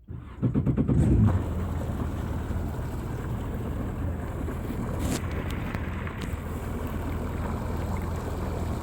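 Boat motor running steadily with a low, even hum, louder for about the first second and then holding level.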